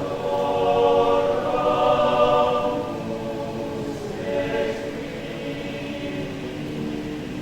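A Catholic church choir singing in several parts, holding sustained chords. It is louder for the first three seconds or so, then carries on more softly.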